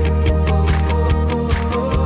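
Background music with a steady drum beat over a held low bass.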